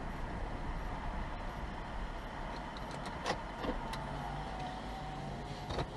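Car running, with steady engine and road noise heard from inside the cabin. A faint whine slides slowly down in pitch over the second half, with a couple of short clicks.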